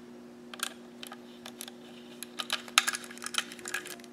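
Small screwdriver driving a mounting screw through the enclosure into a 3.5-inch hard drive: light, irregular metal clicks and scrapes, coming thicker in the second half, over a steady low hum.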